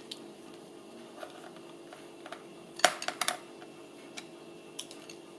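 A quick cluster of sharp clicks and taps about three seconds in, with a few fainter ticks around it, from handling the reassembled laptop and small tools. A steady low hum runs underneath.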